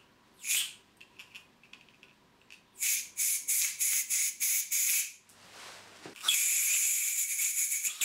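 Aerosol can of compressed air sprayed through a thin straw nozzle into a drilled hole, blowing out the swarf. It hisses in one short spurt, then a quick run of about seven short spurts, then a long continuous spray near the end.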